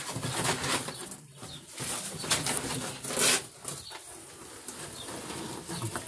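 Cardboard box and plastic wrapping rustling and scraping as they are pulled off and handled around a new washing machine, with louder scrapes about two and three seconds in.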